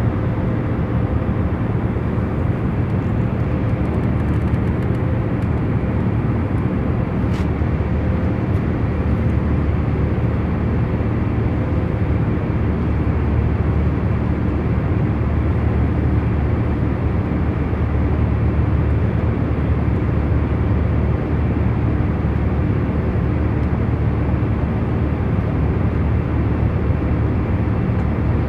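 Airliner cabin in cruise: a steady, low rushing drone of engines and airflow, with a few faint steady hum tones under it.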